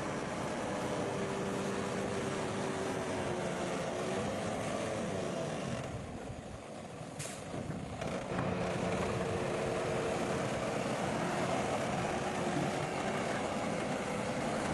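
Komatsu bulldozer's diesel engine running under work, dropping quieter about six seconds in and picking up again a couple of seconds later.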